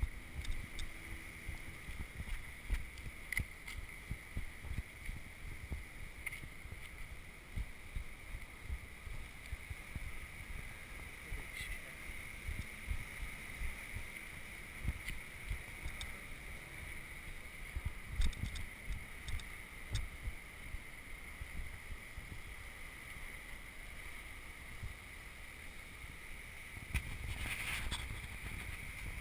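Muffled, irregular bumps and knocks of an action camera in its waterproof housing as the wearer walks, over a steady faint high hum. About 27 seconds in, a rushing wash comes up, the surf breaking on the rocks below.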